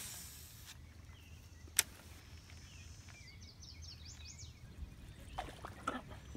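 Quiet lakeside ambience with a steady low rumble, a single sharp click about two seconds in, and faint bird chirps in the middle.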